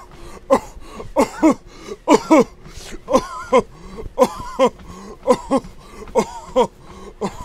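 A person coughing over and over in short, voiced coughs, mostly in quick pairs about once a second, some with a rising-and-falling pitch. The coughing is put on as a comic whooping cough.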